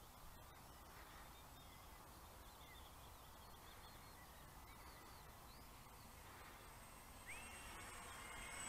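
Near silence with faint outdoor ambience and a few small bird chirps; near the end a thin high whine rises in and holds: the electric motors of a foam P-38 Lightning model plane flying overhead.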